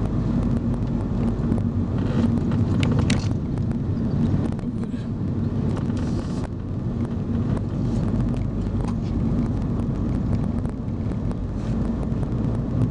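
Car engine running with tyre and road noise, heard from inside the moving car as a steady low hum. A few light clicks or rattles come about two to three seconds in.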